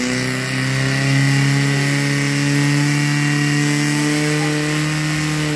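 Portable fire pump engine running flat out, a steady high-revving drone that climbs a little about a second in, as it pushes water through the hoses to two nozzles.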